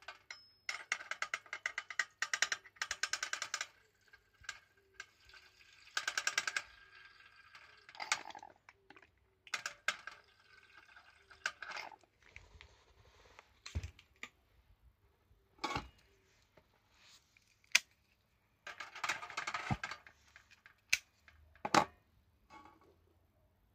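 Esbit pocket stove burning a solid-fuel tablet under a stainless steel cup of water: several short bursts of rapid crackling with a scattered handful of sharp ticks in between.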